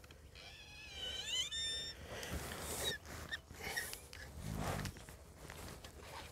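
Baitcasting reel's drag, set to maximum, buzzing in several short runs as a hooked surubí catfish pulls line against it.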